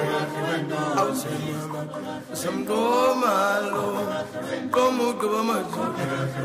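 Background music with chant-like singing.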